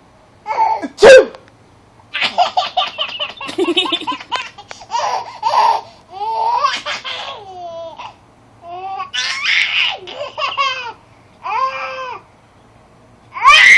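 A woman sneezes once, sharp and loud, about a second in, and a baby girl answers with repeated bursts of laughter in short runs with pauses between. Another loud burst comes near the end.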